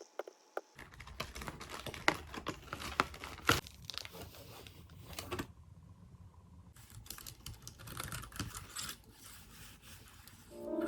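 Computer keyboard keys being typed on, irregular clicking taps with short pauses, at a moderate level.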